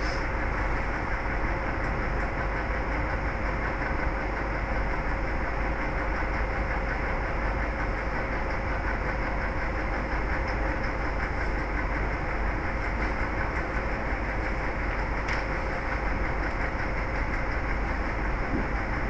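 Steady background noise: an even hiss over a low hum, with a faint steady tone.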